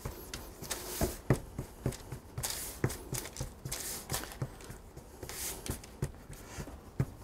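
Hands pressing and patting pastry dough out into a pie crust on parchment paper: soft, irregular taps with the paper rustling and sliding on the counter.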